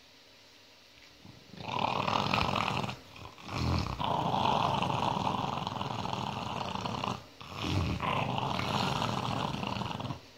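Dog growling: a long rough growl starts about a second and a half in, then a short one, then two longer drawn-out growls, each breaking off abruptly.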